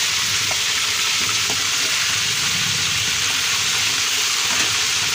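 Pieces of fish frying in hot oil in a steel wok, giving a steady sizzle. Near the end a spatula stirs and turns the pieces.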